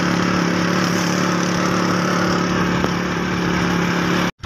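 Motorcycle engine running at a steady cruising speed, with wind and road noise. The sound cuts off abruptly near the end.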